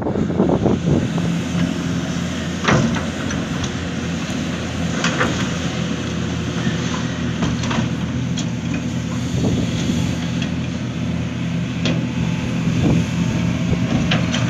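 Large diesel engine of a Hitachi Zaxis 490 LCH excavator running steadily under work, with occasional sharp knocks and clanks every few seconds.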